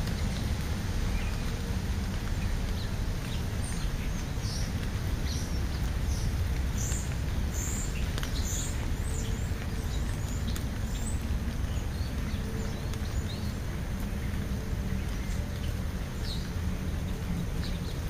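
Scattered short, high chirps of small birds, many of them from a few seconds in until near the end, over a steady low rumble.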